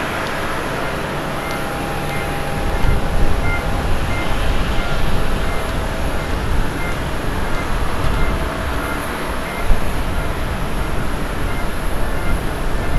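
Jet engines of a Boeing 787-10 Dreamliner on final approach: a steady rush with a faint whine, and a low rumble that swells about two and a half seconds in as the aircraft nears.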